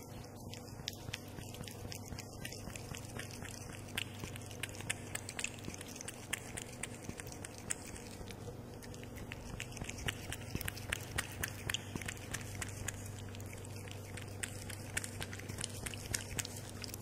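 A domestic cat lapping milk close to the microphone: quick wet tongue clicks, a few a second and irregular, over a steady low hum.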